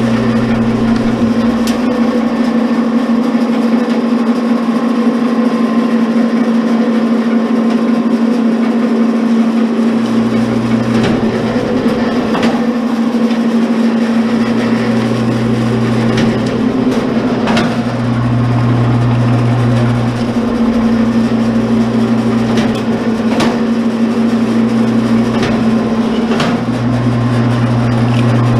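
A machine running with a steady pitched hum, a deeper hum that drops out and comes back several times, and scattered clicks and knocks.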